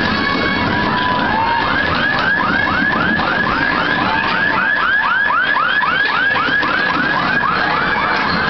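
A siren-like electronic warble: a fast, regular run of rising-and-falling pitch sweeps, about three or four a second, that goes on without a break.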